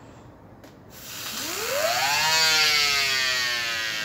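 A small 3D-printed Tesla turbine, its rotor a stack of thin resin discs, blown into by mouth. Air rushes through and the rotor spins up with a whine that rises steeply about a second in, then sags slowly in pitch while still spinning fast.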